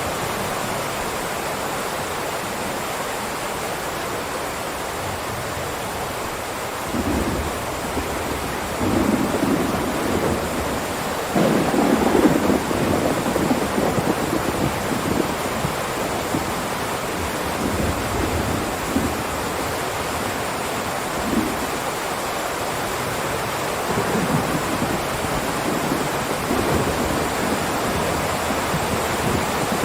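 Heavy rain downpour, a steady hiss. Low rumbles come and go from about seven seconds in, the loudest a little before halfway.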